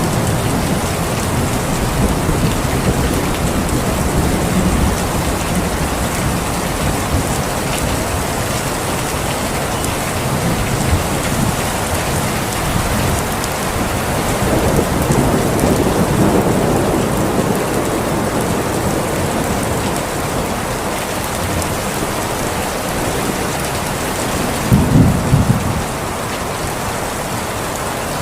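Steady heavy rain, with low thunder rumbling through it, swelling about halfway through and sharper near the end.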